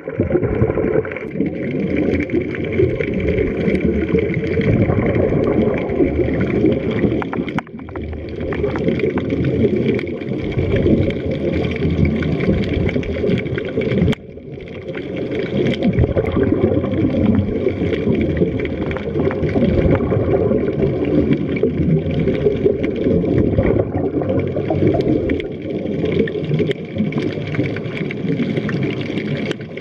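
Muffled underwater bubbling and gurgling as picked up by a camera below the surface, dense and continuous. It drops out briefly twice, about eight and fourteen seconds in.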